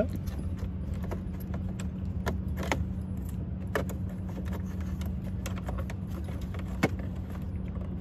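Scattered small plastic clicks and rattles as hands work a wiring connector behind a car's dashboard side panel, with a few sharper clicks, over a steady low hum.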